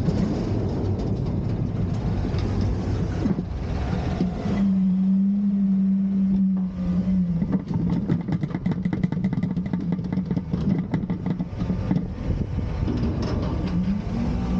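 Garbage truck engine running steadily. About four and a half seconds in it rises to a higher, steady pitch for a couple of seconds, as when the engine is raised to drive the hydraulic bin lift. A run of rapid rattling clicks follows.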